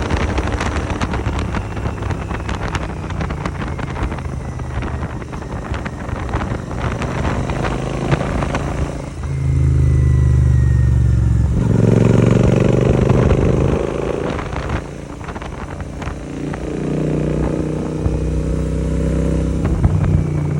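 Royal Enfield 650 parallel-twin motorcycle engine running through an AEW 101 aftermarket exhaust while riding. The exhaust note gets louder as the bike pulls about nine seconds in, eases off after about five seconds, then picks up again near the end.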